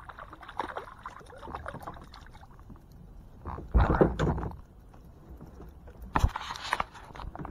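A small hooked bass splashing at the surface beside a kayak. It is followed by two loud, sudden bumps and rustles of handling against the kayak, one about halfway through and one near the end.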